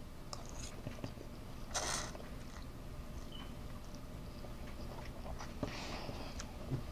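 A person chewing and slurping noodles off a fork, with two short breathy slurps, one about two seconds in and one near the end.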